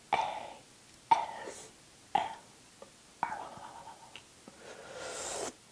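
A woman whispering and making breathy mouth sounds close to the microphone: four short breathy bursts about a second apart, then a longer breath that swells and cuts off near the end.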